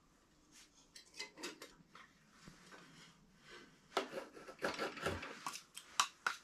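Knife shaving thin curls off a split log of firewood to make kindling: a few light scrapes and clicks at first, then from about two-thirds of the way in a quick run of short, sharp scraping strokes, the loudest part.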